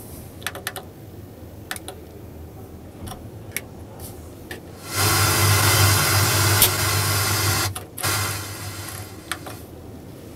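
Sharp plastic clicks of dashboard controls and a socket cover in a truck cab. About five seconds in, a loud whirring rush with a low hum runs for about three seconds, followed by a shorter one.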